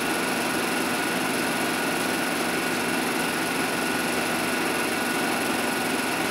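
Steady hiss with a faint constant whine, unchanging throughout: the background noise of an old 16mm film soundtrack played through a projector during a silent title card.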